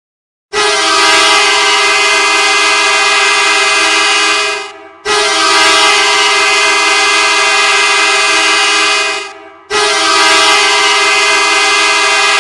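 Ice hockey goal horn sounding three long, loud blasts of about four seconds each. Each blast is a steady multi-tone chord, and it signals a goal.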